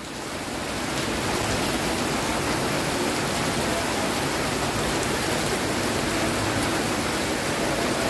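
Steady rain falling on wet paving, a dense even hiss that fades in over the first second.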